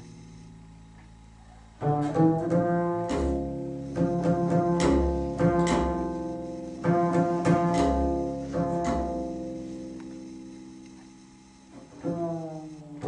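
Solo double bass playing: a held note dies away, then from about two seconds in a run of sharply started notes, then a long note that fades out before new notes begin near the end.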